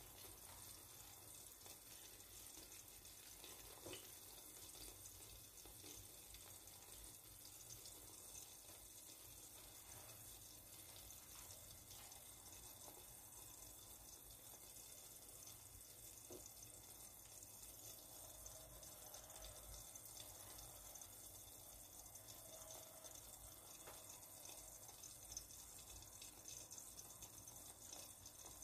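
Eggs frying in a pan with tomato and onion, giving a faint, steady sizzle with an occasional faint pop.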